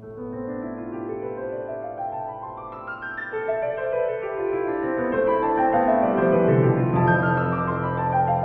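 Background music: a piano plays flowing runs of notes that climb and then fall, and low sustained notes join about seven seconds in.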